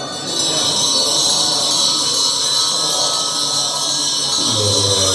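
A Tibetan Buddhist hand bell rung continuously, a bright shimmering ring over monks' low chanting. Near the end a deep chanting voice swells louder.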